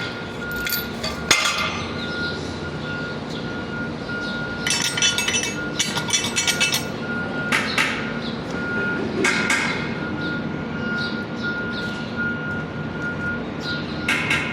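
Metal-on-metal clanks and hammer-like knocks from tools and parts, with a quick run of rapid clinks about five seconds in and single knocks scattered through. A steady high tone sounds behind them and breaks into short repeated beeps in the second half.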